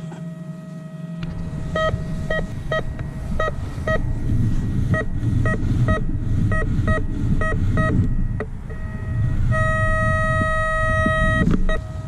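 Metal detector beeping: a run of short electronic beeps, all at one pitch and irregularly spaced, then a steady held tone of about two seconds near the end, the tone a detector gives when its coil is right over a target. A low rumbling noise runs underneath.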